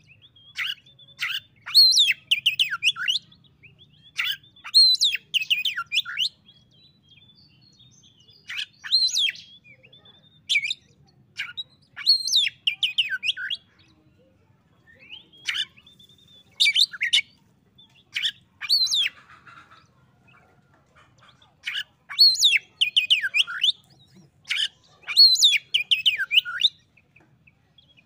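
Oriental magpie-robin singing its challenge song at a rival: phrases of quick, loud whistled notes, many sweeping down in pitch, come in clusters every second or two, with a few short pauses.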